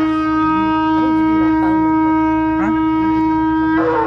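Shofar blown in one long, steady blast of nearly four seconds, with a bright, buzzy tone, lifting briefly in pitch just before it cuts off.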